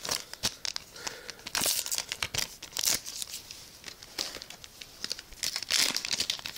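Foil trading-card booster pack crinkling and tearing as it is handled and opened, in several irregular bursts of crackling.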